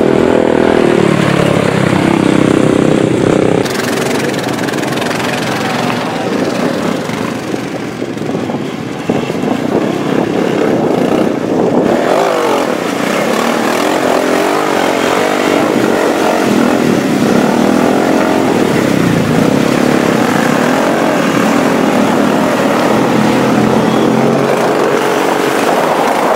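Quad ATV engines revving hard, the revs rising and falling over and over, as the quads churn through a muddy water trench.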